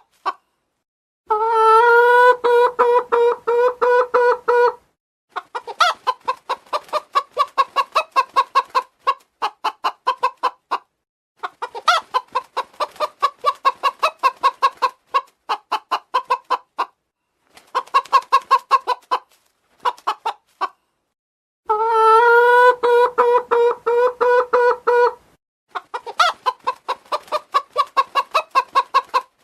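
Domestic chicken clucking in quick runs of short clucks with brief pauses between them. Twice, about a second in and again about 22 seconds in, it gives a longer, louder drawn-out call lasting a few seconds.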